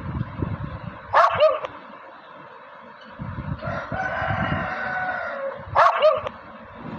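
Dog barking: a quick double bark about a second in and another near the end, the loudest sounds, with a long held call of about two seconds between them.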